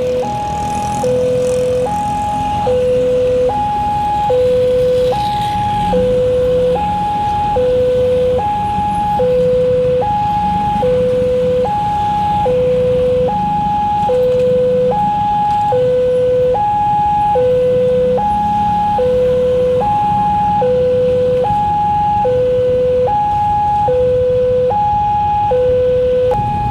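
Railway level-crossing warning siren sounding a two-tone hi-lo call: it switches back and forth between a higher and a lower note, each held just under a second, warning that a train is approaching. A low rumble runs underneath.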